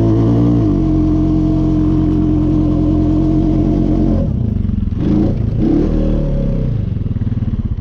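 Four-wheeler (ATV) engine revved hard and held at high revs for about four seconds as it spins through deep snow trying for donuts. The throttle then drops off sharply, blips up twice briefly, and the engine falls back to a lower running note.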